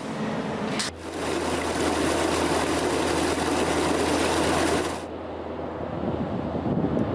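Dredger machinery running: a steady engine hum under a loud rush of water-like noise. It starts abruptly about a second in and stops abruptly about five seconds in, leaving quieter, rougher machine noise.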